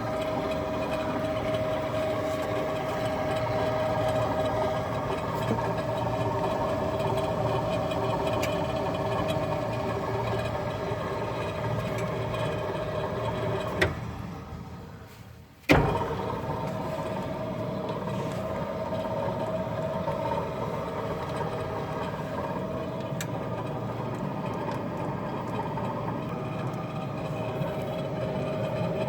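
A 62-year-old Frista washing machine running with a steady mechanical hum. About 14 seconds in it switches off with a click and runs down for under two seconds, then starts again with a sharp jolt and runs on steadily.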